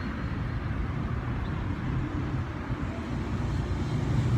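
Low, steady hum of a motor vehicle's engine, growing louder near the end as it comes closer.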